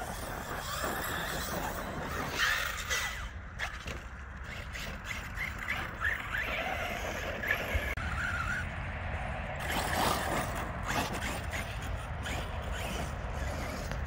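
Arrma Kraton 6S RC trucks driving on loose dirt: their brushless electric motors give short high whines as the throttle is blipped, with tyres scrabbling and small knocks, over a steady low background rumble.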